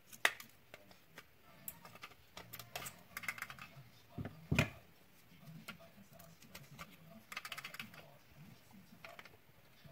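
Hands working on the vacuum cleaner's plastic parts with tools: a scatter of sharp clicks and short scratchy rattles, with two heavier knocks a little after four seconds in.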